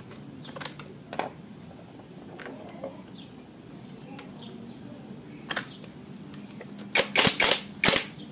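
A few light metal clinks as a socket and parts are handled, then a J-LD cordless impact wrench hammers on the scooter's CVT pulley nut in two short bursts of rapid blows near the end, with a thin high motor whine.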